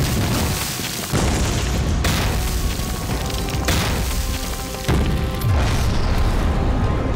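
A run of explosions going off one after another, about five blasts, each a sudden boom that dies away, over background music.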